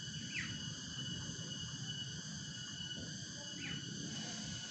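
Cicadas droning steadily in an even, high buzz, with two short falling calls, one just after the start and one about three and a half seconds in.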